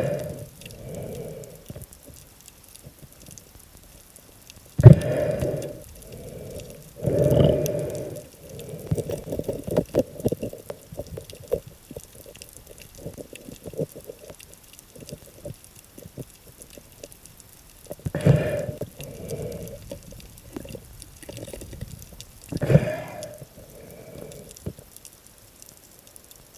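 Underwater sound picked up by a camera in the sea: a low murmur of water broken by four loud, muffled rushes of water, about five, seven, eighteen and twenty-three seconds in.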